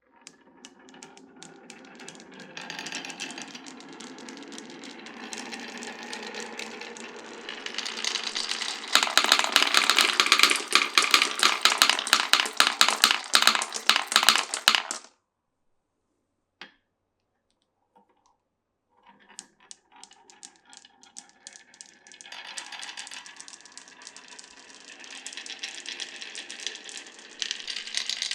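Glass marbles rolling and clattering down a wooden marble run. A rolling rumble builds into a dense rush of rapid clicks, which cuts off abruptly about halfway through. After a short pause with a single click, rolling starts again and the clicking grows toward the end.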